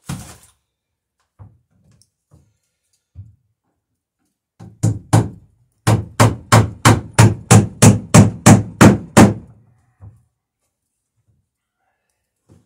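Hammer driving a nail into a dory's wooden rail: a few light taps, then a steady run of about a dozen hard blows, roughly three a second.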